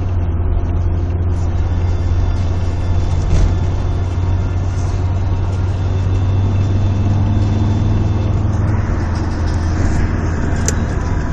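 Car driving at about 100 km/h, heard inside the cabin: a steady low drone of engine and road noise under a wash of tyre and wind hiss. The hiss grows about eight seconds in, and there is one sharp click near the end.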